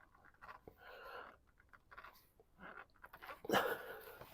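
Small clicks and rubbing of hands and tool on the plastic oil filter housing cap as it is screwed down hand-tight. A louder, sudden rustling rush about three and a half seconds in fades over half a second.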